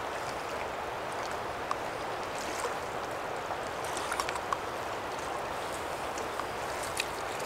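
Steady rush of flowing river water, with a few faint clicks scattered through it.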